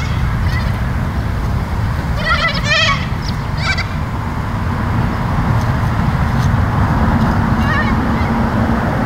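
Bird calls over a steady low rumble: a quick run of calls about two seconds in, another shortly after, and a short one near the end.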